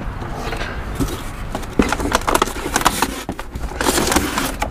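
Cardboard box and molded pulp packaging being handled as items are lifted out, giving irregular knocks, taps and rustles.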